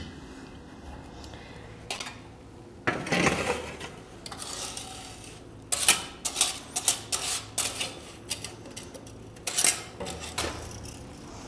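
A hand brush and dustpan sweeping on a wooden ledge: a longer scrape about three seconds in, then a run of short, quick scrapes and clatters, and one more near the end.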